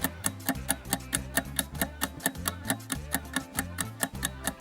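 Background music with a steady clock-like ticking, about four ticks a second, over a low bass line, the countdown pause of a quiz.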